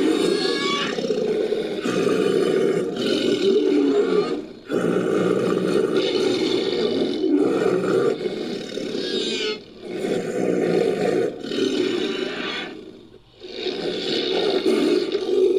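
Layered creature sound effect for a fictional pterosaur: a run of long, loud roars with screeching upper tones, about four calls separated by short breaks. It is built from mixed film-monster and animal roar recordings.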